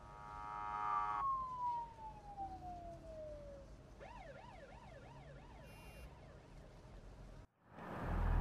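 Police siren, fairly faint: a long tone sliding down in pitch, then a fast up-and-down warble about twice a second that stops shortly before the end.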